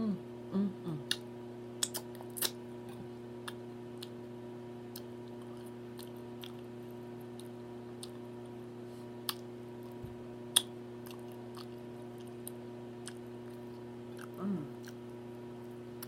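A woman chewing food with wet mouth clicks and lip smacks scattered irregularly, over a steady low background hum. There are a couple of short closed-mouth "mm" hums near the start and again near the end.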